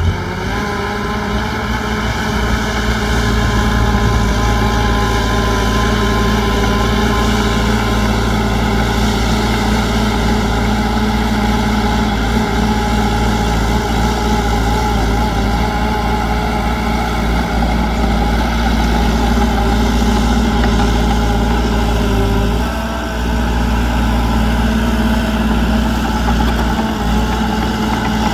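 Heavy earthmoving machine's diesel engine running steadily, with a strong low drone; the sound dips briefly about three-quarters of the way through, then picks back up.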